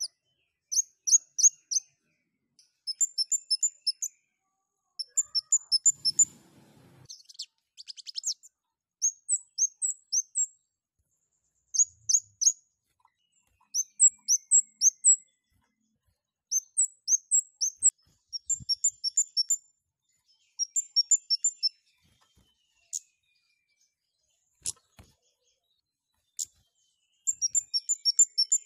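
Scarlet-headed flowerpecker (cabai jawa) calling in quick bursts of several high, sharp chirps, one burst every second or two, with a lull of a few seconds before a final burst.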